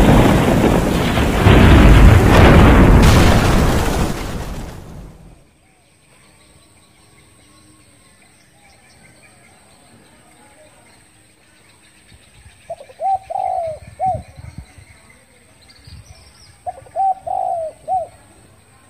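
Thunder over heavy rain, cutting off abruptly about five seconds in. Then a spotted dove cooing: two phrases of several coos, about four seconds apart, in the second half.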